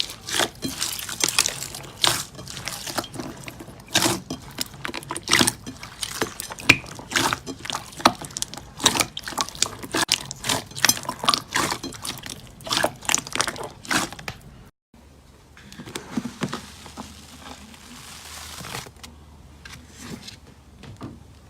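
Slime being squeezed and worked by hand, making rapid wet clicks, pops and squishes. About two-thirds of the way through the sound breaks off briefly, then resumes as softer, sparser squishing.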